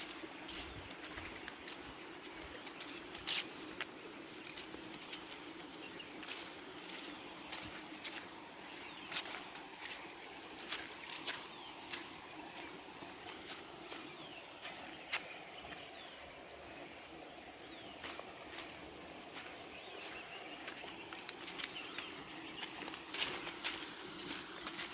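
A high, continuous chorus of insects such as crickets, swelling and easing every two seconds or so, with scattered light clicks.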